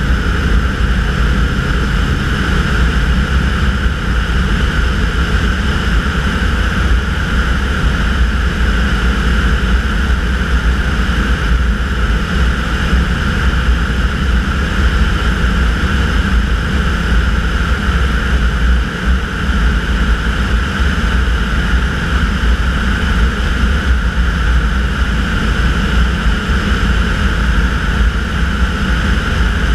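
Tanarg air trike's engine and pusher propeller running steadily in cruise flight, with wind rushing over the microphone.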